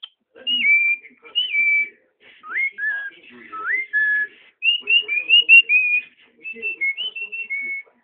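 Cockatiel singing: a string of clear whistled notes in short phrases, some sliding down and then held, others sweeping up into a held note, with brief pauses between phrases.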